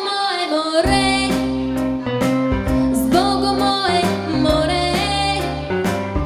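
Young female soloist singing a song over instrumental accompaniment with a steady bass line.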